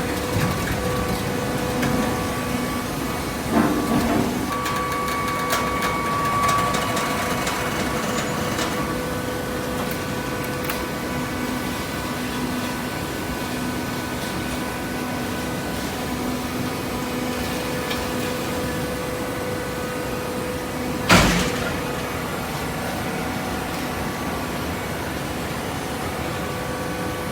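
Baling press machine running with a steady hum, with a short clunk about three and a half seconds in and a sharp bang about twenty-one seconds in.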